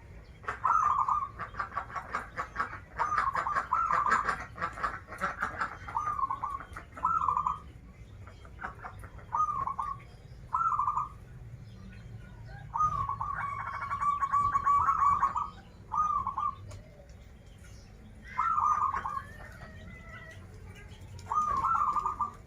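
Zebra dove (perkutut) cooing: a string of short, warbling coo phrases with pauses between them, and one longer drawn-out phrase about halfway through.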